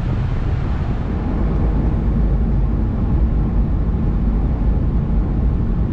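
Steady low rumble of a vehicle on the road: tyre and engine noise heard from inside the cabin.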